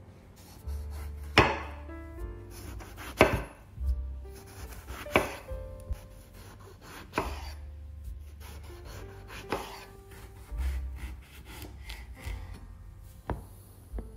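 Chef's knife slicing through a whole eggplant into rounds, each cut ending in a sharp knock of the blade on a wooden cutting board, about every two seconds.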